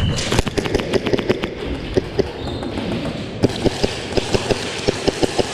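Airsoft gunfire: quick, irregular runs of sharp snaps and clicks from shots and BB hits.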